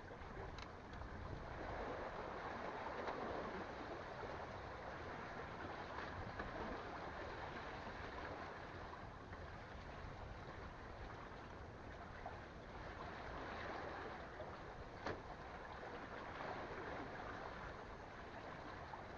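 Steady noise of sea water lapping and washing, with a couple of faint clicks.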